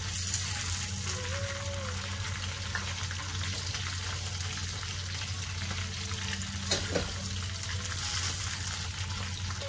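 Chicken pieces deep-frying in hot coconut oil in a kadai: a steady crackling sizzle. Two sharp clicks come about seven seconds in.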